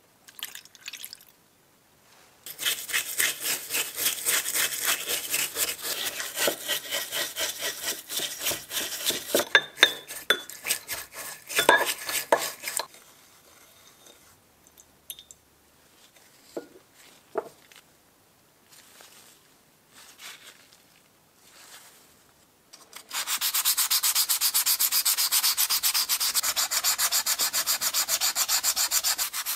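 Hand sanding a metal angle-grinder part with abrasive: quick back-and-forth rasping strokes in two long spells, the second faster and steadier, with a few light clicks and knocks in the quieter stretch between.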